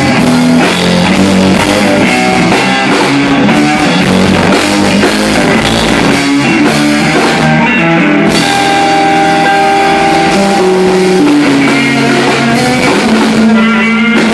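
Live rock band playing electric guitar, bass guitar and drum kit, loud and steady, with a short break in the cymbals about eight seconds in.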